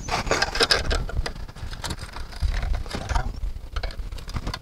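A flat metal strap being bent and worked with pliers against roof tiles: irregular clicking, tapping and scraping of metal on tile, over a low rumble.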